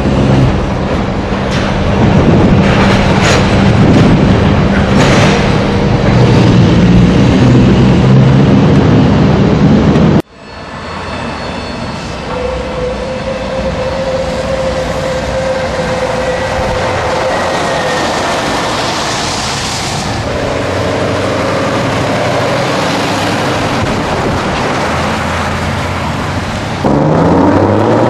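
Scania V8 truck engine running loud under way, with a deep steady hum. About ten seconds in the sound cuts abruptly to a quieter engine with a faint, slowly rising whine, and the loud engine returns near the end.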